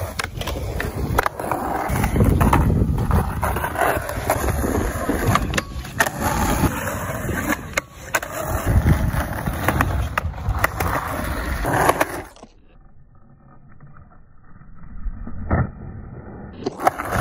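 Skateboard wheels rolling over concrete, broken by sharp clacks and slaps of the board against the ground and obstacles during tricks. It goes much quieter for a few seconds near the end, with a single knock in that stretch.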